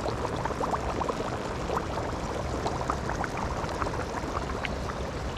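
Fast-flowing river floodwater rushing over and around a submerged bridge, a steady wash full of small splashes and gurgles.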